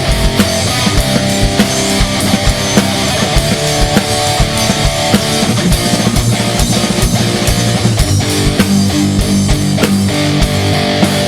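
Rock music: an instrumental passage with electric guitar over a steady drum-kit beat.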